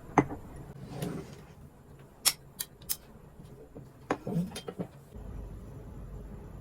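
Handling noises: a string of sharp clicks and knocks at irregular intervals, with a steady low hum starting about five seconds in.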